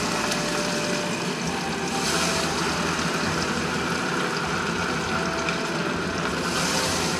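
Hot oil sizzling steadily in a frying pan, swelling louder about two seconds in and again near the end.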